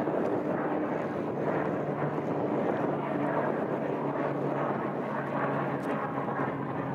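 Pilatus PC-12's single Pratt & Whitney PT6A turboprop engine at climb power just after takeoff: a steady drone with a low propeller hum.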